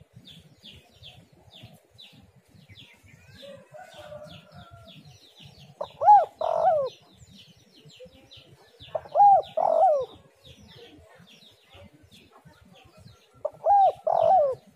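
Spotted dove cooing: three phrases of arched coos a few seconds apart, the first about six seconds in. A faint fast chirping of a smaller bird runs underneath.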